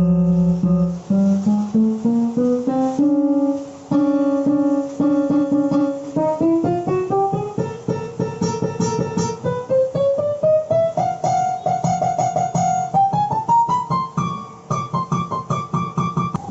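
Roland XPS-30 keyboard playing a plucked, guitar-like tone: a melody of quickly repeated notes climbing step by step from low to high.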